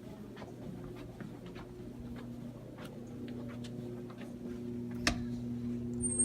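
Footsteps on a hard floor, faint ticks about twice a second, over a steady low building hum. There is one sharper click about five seconds in and a brief high-pitched tone near the end.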